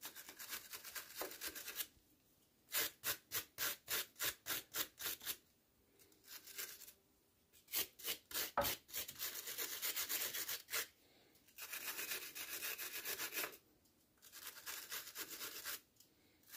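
Hand wire brush scrubbing surface rust off a steel power steering pressure line at the pump, in several bouts of quick back-and-forth strokes, about four a second, with short pauses between them.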